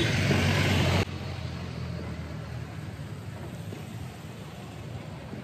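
Street traffic noise from passing motor vehicles, loud for about the first second and then dropping abruptly to a quieter, steady low rumble.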